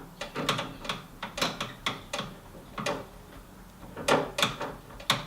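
Screwdriver turning the Phillips screw of a Mazda Miata NA's door latch mechanism: irregular metallic clicks and scrapes, with a louder cluster about four seconds in. The screw is being tightened because it had worked loose and stopped the outside door handle from opening the door.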